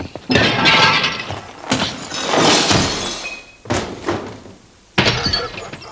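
A series of loud bangs and crashes, about five of them, coming a second or so apart.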